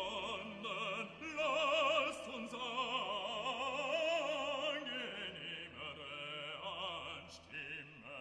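Background music: an operatic voice singing with strong vibrato over orchestral accompaniment.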